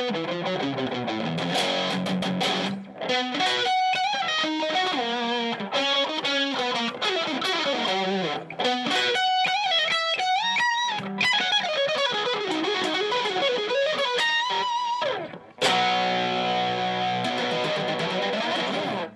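Ibanez RG1550FM electric guitar with a mahogany body and a DiMarzio Crunch Lab humbucker, played with a distorted tone: single-note lead lines with bends and slides. About three-quarters of the way through, a chord is struck and left ringing until it is cut off abruptly at the end.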